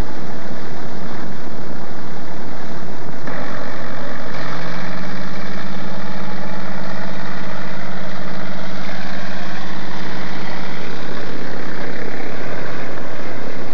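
Propeller aircraft engine running: a steady, noisy drone that grows louder about three to four seconds in, with a steady low hum through the middle.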